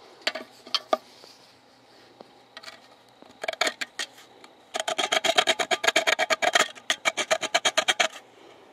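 Rust being scraped off a steel bow saw blade by hand: a few scattered scrapes, then a fast, even run of short scraping strokes for about three seconds, the blade ringing faintly with each one.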